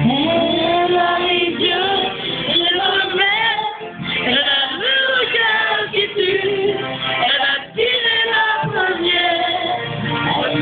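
Singing over backing music, a cover of a French pop song, dull-sounding with no treble.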